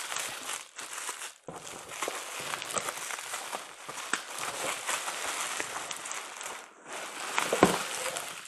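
Plastic bubble wrap crinkling and crackling as it is handled and pulled out of a cardboard shipping box, with a thump near the end.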